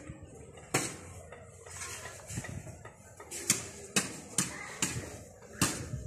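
Sharp clinking knocks, spaced irregularly: one just under a second in, then four about half a second apart from about three and a half seconds in, and one more near the end.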